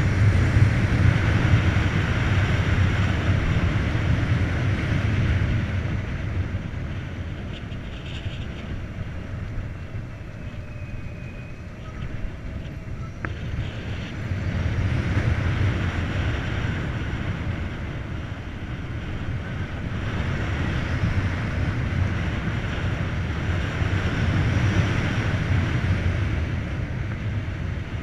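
Wind buffeting the microphone and tyre roar from an electric motorcycle, the Volta BCN Sport, riding along at speed with no engine note. The rush eases for several seconds near the middle as the bike slows, then builds again.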